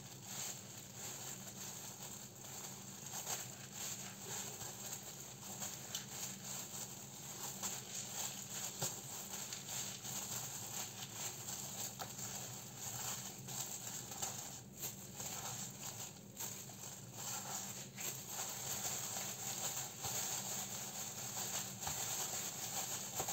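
Light food-prep handling noises: a bamboo sushi mat rustling and clicking and plastic gloves crinkling as a sushi roll is rolled and pressed, over a steady low hum.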